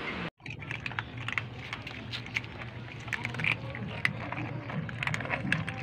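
Several cats crunching dry kibble from a shared bowl: many quick, irregular crisp clicks, over a low steady hum.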